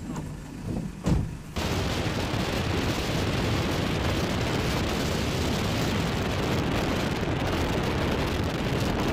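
Steady road and wind noise from a car driving along a wet road, starting abruptly about a second and a half in after a short quieter stretch.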